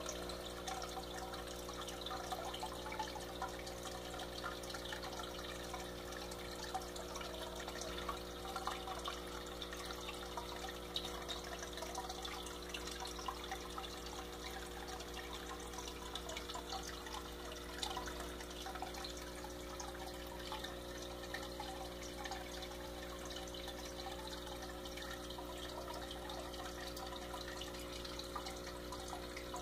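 Aquarium filter running: a steady motor hum under continuous trickling, splashing water.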